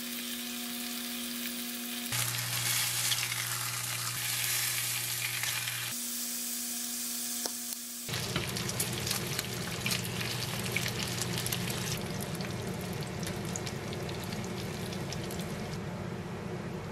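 Pork belly slices frying in a pan, a steady sizzle. From about eight seconds in it grows louder and busier, with quick crackles of spitting fat.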